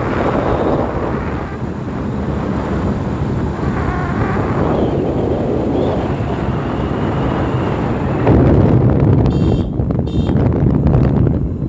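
Wind buffeting the microphone over steady road and engine rumble from a moving vehicle. Near the end come two short, high-pitched beeps.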